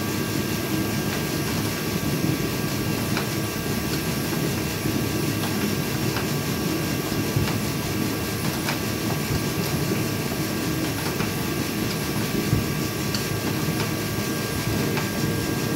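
Steady mechanical drone with a couple of constant tones, over which come a few sparse, light clicks of a hand wrench turning a bolt and nut to flare a rivnut.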